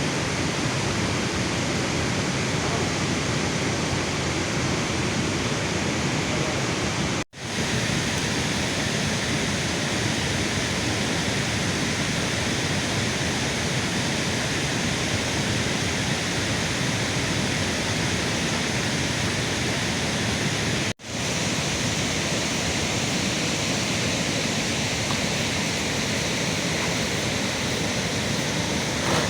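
Steady heavy rain, an even rushing hiss without letup, broken by two brief sudden drop-outs about seven and twenty-one seconds in.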